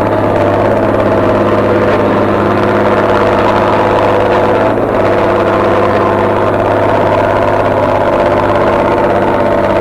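Engines of heavy earthmoving machinery running steadily with a constant low hum.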